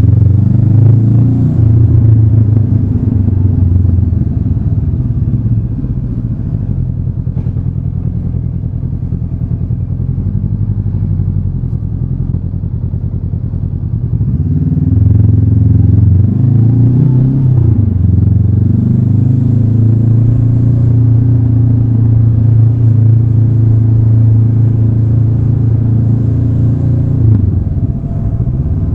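Honda CB500X parallel-twin engine running at low city speed. It eases off and quietens for several seconds, then about halfway through picks up with a rising pitch and holds a steady pull, dipping briefly near the end.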